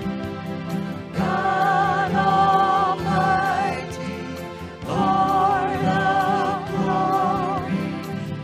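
Church worship music: a song sung with vibrato over sustained instrumental accompaniment, in two long phrases with a short break between them.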